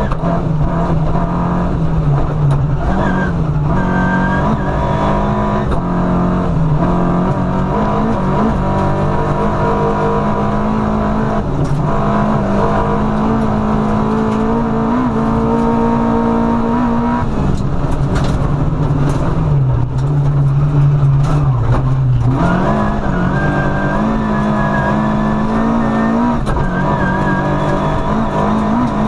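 Rally car's engine heard from inside the cabin under hard acceleration, revs holding high, dropping sharply about two-thirds of the way through and then climbing again through the gears. Gravel and stones clatter against the underside as sharp scattered clicks.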